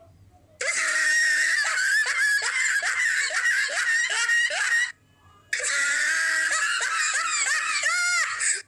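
Looping canned laughter sound effect, a high-pitched cackling laugh in rapid pulses. It plays in two stretches, broken by a short silence about five seconds in.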